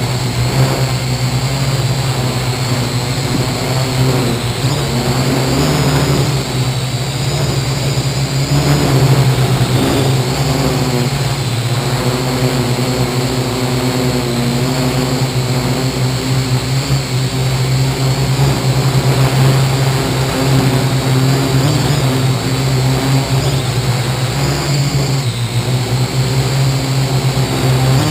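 Parrot AR.Drone 2.0 quadcopter's electric motors and propellers running steadily in flight, heard close up from a camera mounted on top of the drone: a loud low hum under a high whine that wavers a little in pitch.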